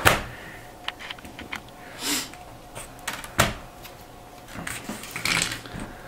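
A partly disassembled Dell Inspiron 15R laptop being handled: plastic clicks and knocks as it is flipped over, set down and opened, with a sharp knock at the start and another a little past halfway, and brief rustling between.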